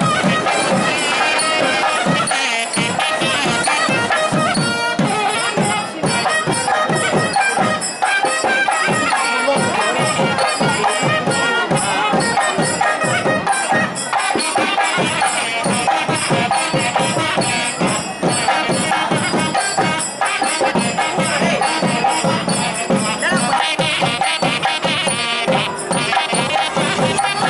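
Traditional music with fast, even drumming and jingling percussion, over wavering melodic lines.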